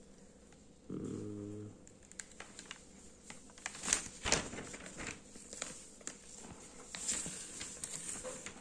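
Newspaper pages being turned and handled, crackling and rustling in many small bursts, with a brief low hum about a second in.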